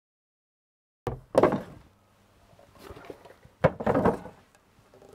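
A few sharp knocks and thuds, starting about a second in: two close together, then two more near the middle, with fainter rustling between.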